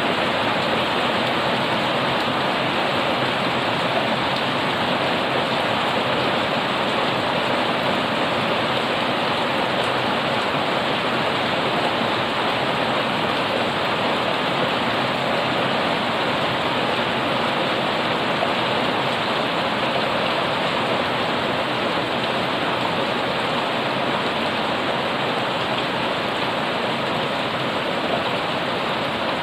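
Heavy rain pouring steadily onto a paved yard and garden plants: a loud, even hiss that neither swells nor breaks.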